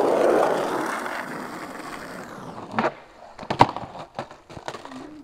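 Skateboard wheels rolling on asphalt, loudest at first and fading as the board moves off. About three seconds in comes a run of sharp clacks of the board against the road, the loudest about half a second later.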